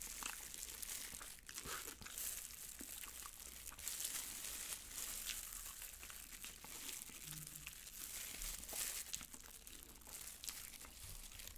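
Close-miked eating of sauced Korean fried chicken (yangnyeom chicken) held in a plastic glove: the glove crinkles while the chicken is bitten and chewed in many small, irregular clicks and sticky mouth sounds.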